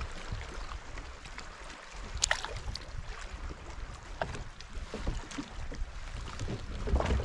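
Wind rumbling on the microphone and water lapping against a plastic kayak's hull, with scattered small clicks from fishing tackle being handled, one sharper click about two seconds in. Louder knocks and rustling near the end as the angler shifts in the seat.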